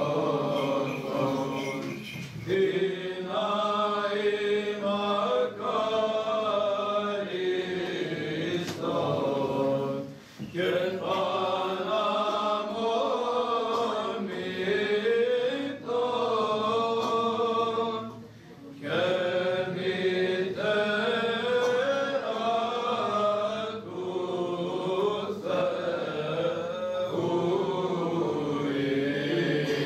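A choir of boys and young men singing Orthodox Byzantine chant together, with melodic phrases separated by brief pauses for breath.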